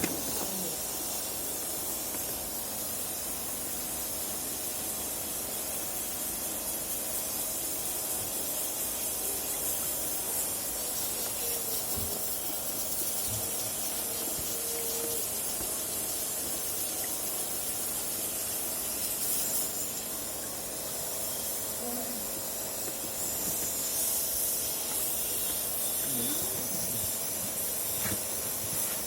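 A steady, even hiss, high-pitched and unbroken, as from a spray or jet of fluid.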